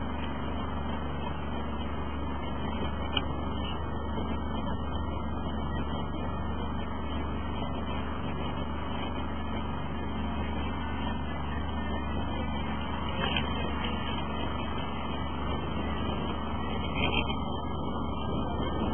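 Boat's motor running steadily while underway, a constant low rumble with water and wind noise, broken by a few brief knocks.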